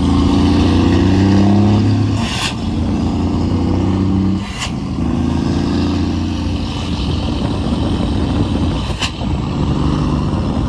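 Scania truck's diesel engine through a straight-pipe exhaust, running loud as it is driven up through the gears. The engine note changes three times at the gear shifts, each with a brief hiss.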